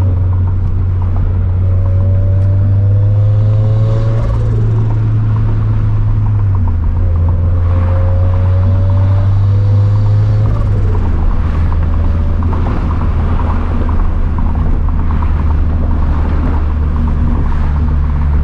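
Turbocharged Scion FR-S flat-four engine and exhaust droning under way at moderate revs. The engine note climbs slowly several times and drops in steps twice, as with gentle acceleration and gear changes.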